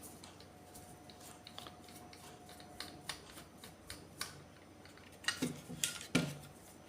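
A screwdriver loosening the small screws on the cover of a metal pop-up outlet box: faint scattered clicks and light scraping, with a cluster of louder clicks about five to six seconds in.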